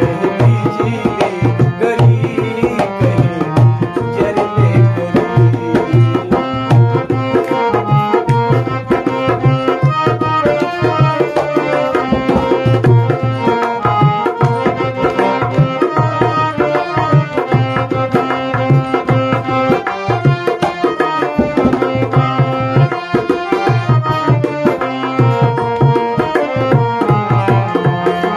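Instrumental passage of a folk song: a harmonium plays the melody in sustained reedy notes over a steady hand-played dholak rhythm with deep bass strokes.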